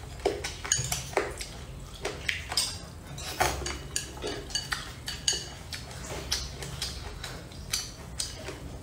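Chopsticks clicking and scraping against a ceramic bowl while scooping up noodles, in many short, irregular clicks with a light ring.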